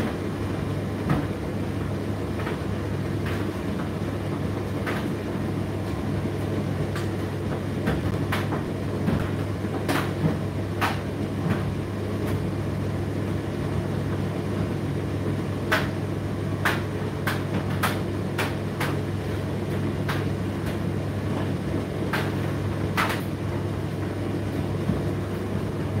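Indesit IDC8T3 condenser tumble dryer running mid-cycle: a steady low hum from the motor and drum, with irregular light clicks and knocks scattered through it.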